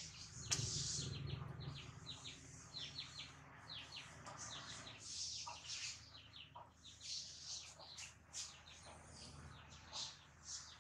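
Small birds chirping in quick runs of short, high notes that fall in pitch, with a sharp click about half a second in.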